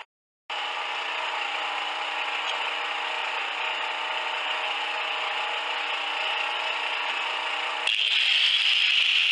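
Electric angle grinder running at speed with a steady whine, starting abruptly after a short silence. About eight seconds in, the disc bites into a welded steel bracket and the sound grows louder as it grinds the metal.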